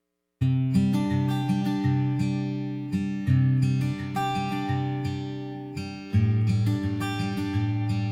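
Background music on acoustic guitar, starting about half a second in with plucked and strummed notes in a steady rhythm.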